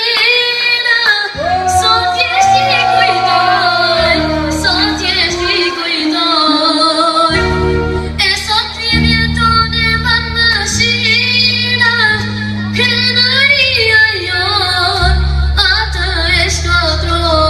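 A child singing a song with bending, ornamented held notes over instrumental backing with sustained bass notes that change every second or two.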